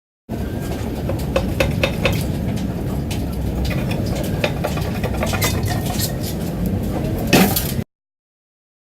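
Metal tools and engine parts clinking and clanking during an engine teardown, over a steady low rumble, with one louder ringing clank near the end. The sound cuts in and cuts off abruptly.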